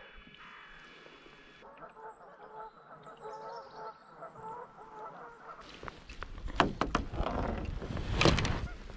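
A series of short honking bird calls, then from about six seconds in louder close rustling, knocks and clicks as a landing net and fish are handled on a kayak deck.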